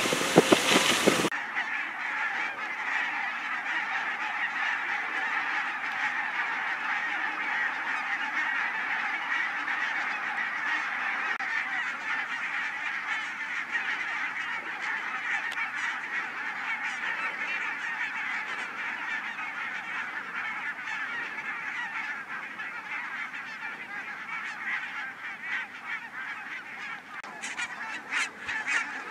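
A large flock of barnacle geese calling all at once: a dense, steady chatter of many overlapping short honks. A brief louder noise opens it and cuts off suddenly about a second in.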